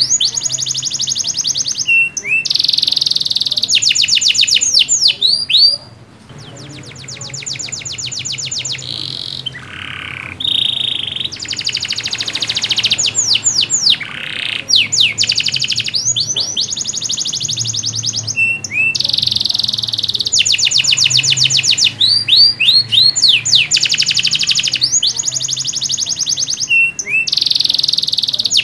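Domestic canary in full, vigorous song: long runs of very fast trills alternating with rising and falling whistled notes. There is a brief lull about six seconds in.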